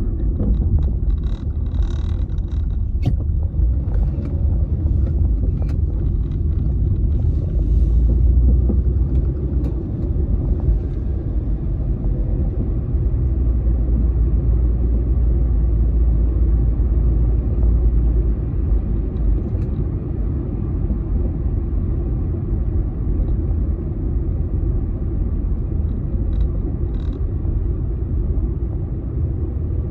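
A car being driven, heard from inside the cabin: a steady low rumble of engine and road noise, with a few faint clicks and knocks in the first few seconds.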